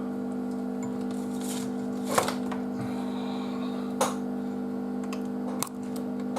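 A few sharp clicks and taps of small tools or parts being handled on a workbench, three of them standing out, over a steady low hum.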